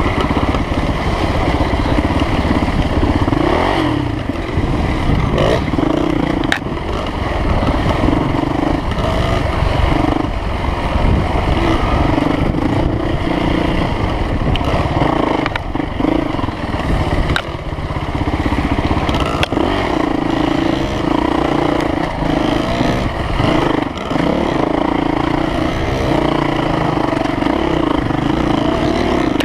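Off-road dirt bike engine running along a trail, its note rising and falling as the throttle is worked, with a low rumble underneath and a few sharp knocks and clatter from the bike over the ground.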